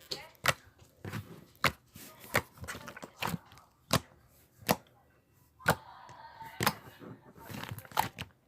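Slime being squeezed and worked by hand, giving sharp pops and clicks about once a second.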